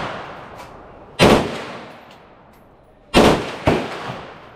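M16 rifle (5.56 mm) firing on a covered outdoor range: a short burst about a second in, then two more close together around three seconds in. Each report trails off in a long echo.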